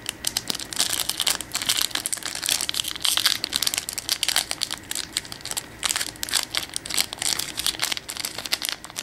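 Foil wrapper of a trading-card booster pack crinkling as it is handled and opened by hand, a rapid, irregular string of small crackles.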